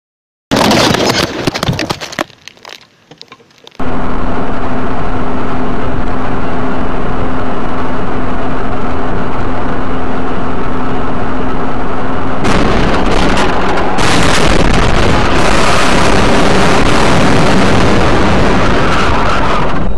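Distorted dashcam audio from inside a moving car: a short loud burst, then steady loud road noise with a low hum. About twelve seconds in it jumps suddenly to louder, rougher noise as the car crashes and the camera is knocked off its mount.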